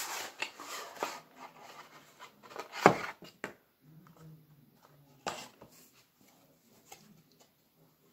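A deck of tarot cards and its cardboard box handled by hand: light rustling and clicks, then a sharp tap about three seconds in, the loudest sound, followed by a few quieter taps.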